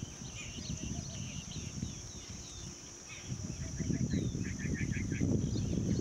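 Small birds chirping, with scattered short calls and a quick run of about half a dozen chirps near the end. Under them run a steady high-pitched hum and a low, uneven rumble.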